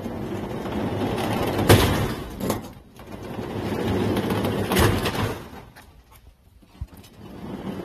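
Sliding storm shutter (amado) panels rumbling along their track in two runs, each with a sharp knock. After a short lull the rumbling starts again near the end.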